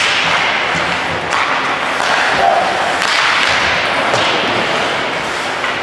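Ice hockey game sound: a few sharp clacks and thuds, typical of sticks, puck and boards, over a steady hiss of rink noise.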